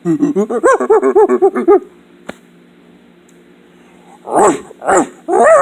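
A man's voice imitating a small dog: a quick run of about ten high yips, then two short yelps and a long howl that falls in pitch, starting near the end.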